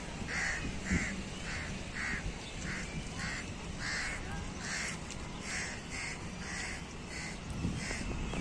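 Crows cawing over and over, short harsh calls coming about twice a second, with a steady low background rumble.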